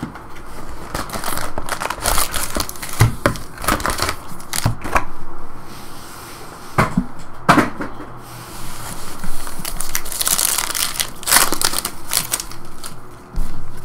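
Trading card packs being handled, set down on the table and torn open: irregular crinkling and tearing of the pack wrappers, with sharp clicks and taps in clusters.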